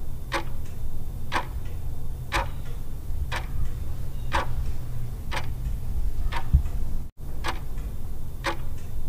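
Clock-ticking sound effect, one sharp tick a second over a steady low hum, marking a quiz countdown timer.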